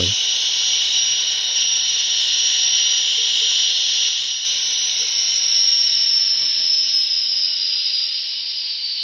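Gas-turbine sound from the HO Union Pacific GTEL 'Big Blow' model's LokSound DCC sound decoder, played through the model's small speaker: a steady high-pitched whine and hiss that eases slightly lower and fades a little near the end.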